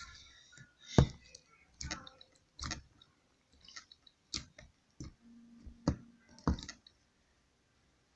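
Slime being squeezed and worked by hand, giving a run of irregular sharp wet clicks and pops, about six louder snaps, as trapped air bursts out of it.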